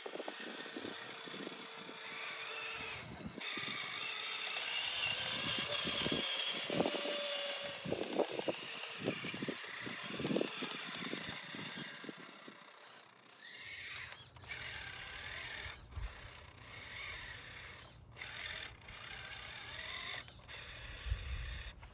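Toy-scale RC construction machine's small electric motors and plastic gears whirring and clicking, with scraping and knocks as loose soil is pushed and dumped. About halfway through it turns to a low steady hum with sharp ticks.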